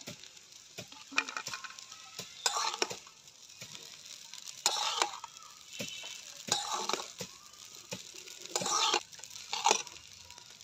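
Metal spatula scraping and tossing cooked spiral pasta in a steel kadai, about six separate strokes one to two seconds apart, over a faint frying sizzle.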